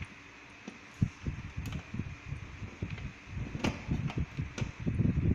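Handling noise of banana-plug patch cords and an oscilloscope probe being plugged into a trainer panel's sockets: soft knocks and rustling that get busier from about a second in, with a few sharp clicks.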